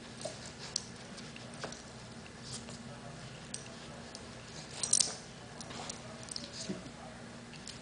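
Scattered light clicks and taps from beagles playing with a ball on a hard tiled floor, with a louder cluster of clatter about five seconds in.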